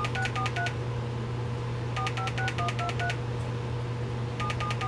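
DTMF telephone tone generator chip, driven by a microprocessor that steps through number combinations, sounding dialling tones: quick runs of about six or seven short two-tone beeps, each run lasting about a second. One run ends just after the start, another plays about two seconds in, and a third starts near the end. A steady low hum runs underneath.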